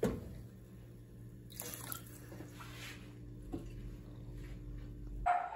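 Pot of rice and sun-dried beef with water just added, simmering on a stove: faint bubbling and popping over a low steady hum that cuts off abruptly near the end.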